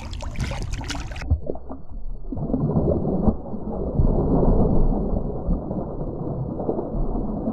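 Muffled water sloshing and gurgling, with the higher sounds cut off suddenly about a second in, as when the microphone goes under water.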